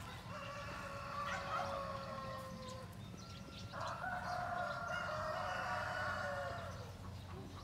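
Rooster crowing twice, each crow long and drawn out, about three seconds apiece.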